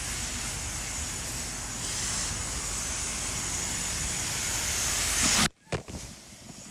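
High-pressure car wash wand spraying water onto a car, a steady loud hiss that cuts off abruptly about five and a half seconds in, followed by a few short knocks.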